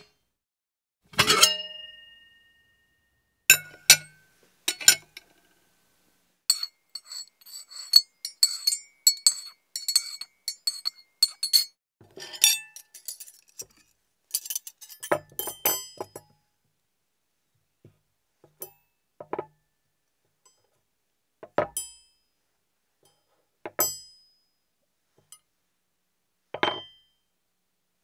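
Dishes and plates clinking and knocking together. First come a few separate knocks, some with a short ringing tone after them. Then a fast run of clatter lasts several seconds, and single clinks follow with gaps between them.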